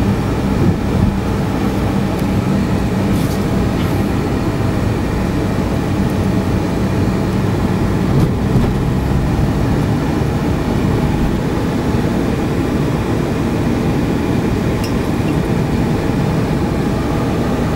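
Steady low rumble inside a moving car: engine and road noise while driving slowly.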